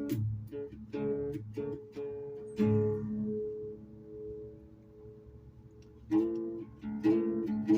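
Guitar played by plucking, picked notes and chords. Partway through, a chord is left to ring and fade for about three seconds before the picking starts again.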